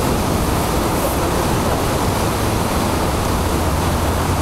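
River water pouring over a weir, a steady loud rush of churning white water.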